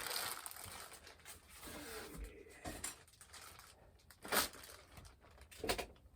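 Packaging being handled during an unboxing: rustling and crinkling, with two sharper crackles, one about four seconds in and one near the end.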